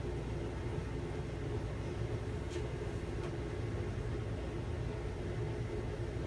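Kitchen exhaust fan running with a steady low hum, with two faint ticks midway.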